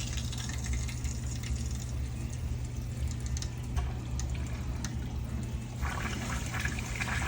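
Water running through a freshly rebuilt 1-inch Zurn Wilkins 975XL2 backflow preventer as it is refilled after its shutoff valves are opened, a steady rushing with a low hum beneath. About six seconds in a louder hiss starts.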